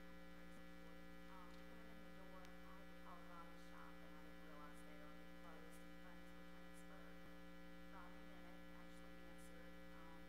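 Steady electrical mains hum on the sound system, with a faint voice speaking far off underneath it.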